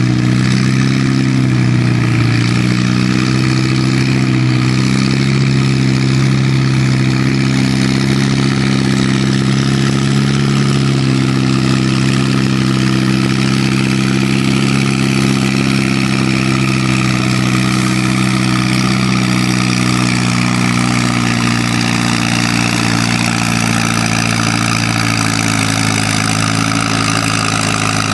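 An old farm tractor's engine running steadily under load as it pulls a weight-transfer sled, its pitch wavering a little in the first few seconds and then holding even.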